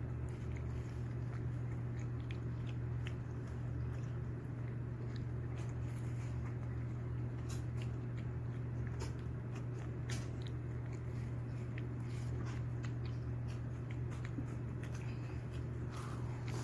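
Pomeranian biting and chewing watermelon: irregular crunches and clicks over a steady low hum.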